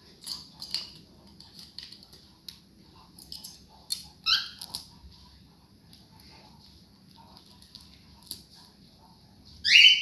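Cockatiels chirping, with a short call about four seconds in and a louder call sweeping upward in pitch near the end, among scattered light clicks.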